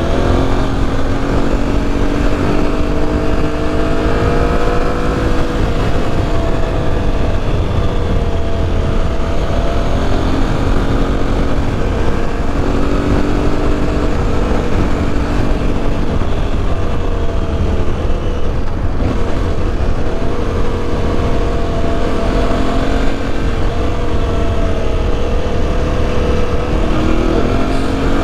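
Aprilia Tuareg 660's parallel-twin engine running on the road, its note rising and falling gently with the throttle and climbing again near the end, over a steady low rushing noise.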